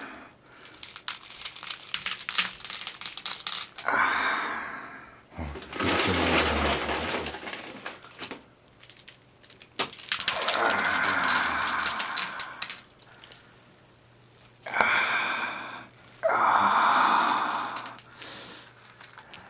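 Close-miked cereal being crushed in gloved hands and eaten: bursts of crisp crackling and crunching, alternating with wetter squishing of cereal soaked in milk, with short pauses between bursts.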